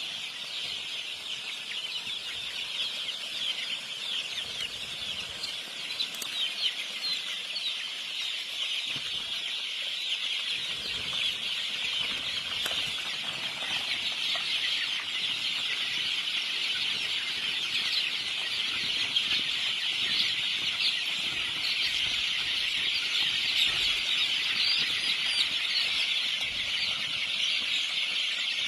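Many birds peeping and chirping at once in a dense, unbroken chorus, slowly growing louder.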